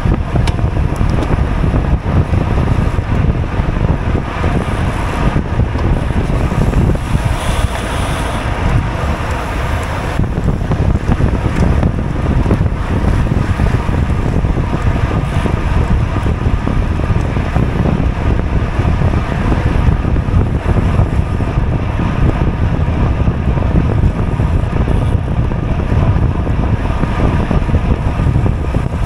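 Loud, steady wind noise buffeting a GoPro's microphone on a bicycle moving at racing speed.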